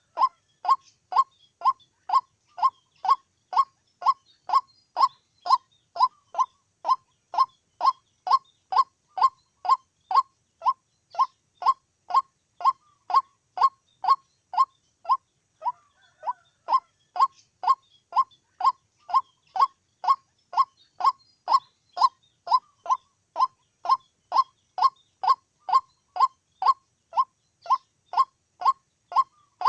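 White-breasted waterhen calling: one short, downward-sliding note repeated monotonously, nearly two a second, at a very even pace.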